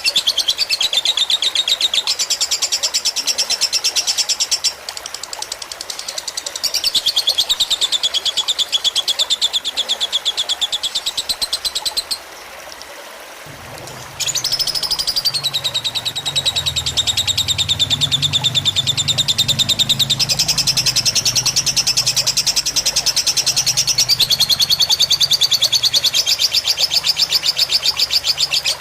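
Lovebird singing long, rapid rattling trills, each held for several seconds, with two short pauses. This is the long continuous song prized in a 'fighter' lovebird.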